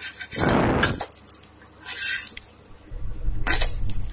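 Metal spatula scraping and clinking against a tawa griddle under a crisp rice-flour rotti, in three short goes: a longer scrape about half a second in, then brief ones about two seconds in and near the end.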